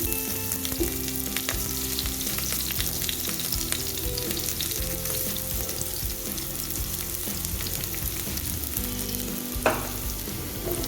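Hot oil sizzling and crackling steadily as food fries in a pan, with one sharp clink about ten seconds in.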